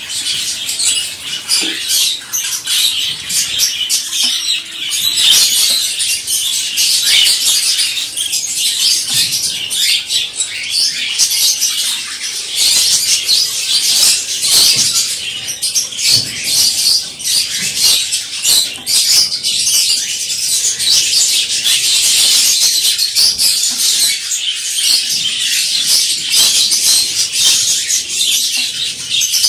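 Many small caged birds chirping and twittering at once, a dense unbroken chorus of high, quick calls.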